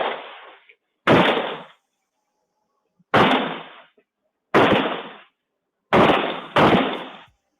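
Five gunshots, each a sharp crack with a short decaying tail, picked up by a Ring doorbell camera's microphone. They come one to two seconds apart, and the last two are about half a second apart.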